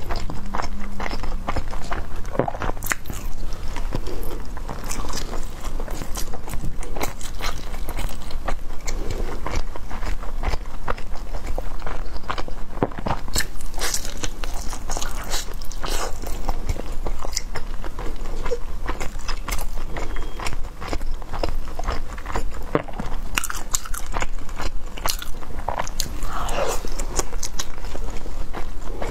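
Close-miked chewing and biting of sticky glutinous-rice shumai: dense, irregular wet mouth clicks and smacks.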